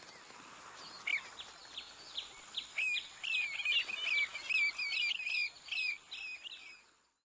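Birds chirping and calling: a few scattered calls, then a quick run of chattering calls from about three seconds in, fading out just before the end.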